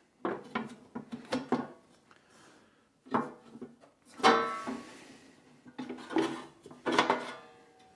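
Metal top cover of a NAD C510 DAC being worked loose and pulled off the chassis: a series of metallic clanks and scrapes. The loudest comes about four seconds in and rings briefly, and another comes near the end.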